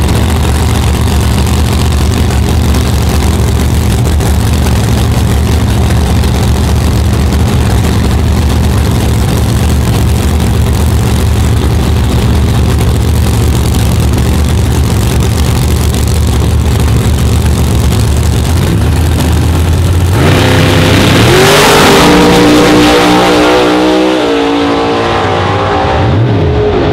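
Top Sportsman drag cars' V8 engines idling loudly and steadily at the starting line. About twenty seconds in they launch at full throttle, the engine pitch climbing in steps as they pull away down the strip and fade.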